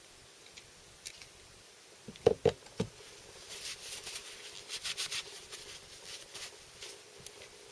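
Metal brake-caliper parts, an anchor and bolt, handled on a tabletop: a light click, then three sharp knocks between two and three seconds in, followed by a few seconds of crackly rustling as a tissue is handled.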